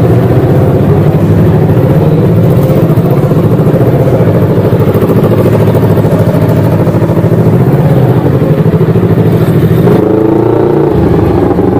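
Yamaha R25 twin-cylinder engine in a modified old Vixion, running loud at light throttle as the bike rolls along at low speed. Its note shifts about ten seconds in.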